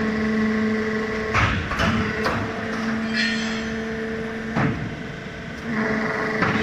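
QTJ4-18 hydraulic cement block machine running: a steady hum from its hydraulic pump unit, broken by sharp metal knocks as the machine's parts move. There is a short hiss about three seconds in, and the hum stops briefly after a loud knock and comes back.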